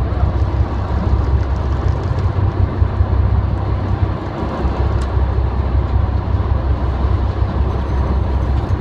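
Steady low rumble of a fishing boat's engine heard from the deck, with no speech.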